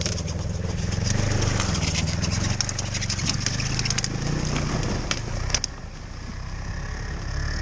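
Ski-Doo snowmobile engine running as the machine pushes up a bank through willow brush, with twigs snapping and scraping against it. The snapping stops and the engine becomes quieter about five and a half seconds in.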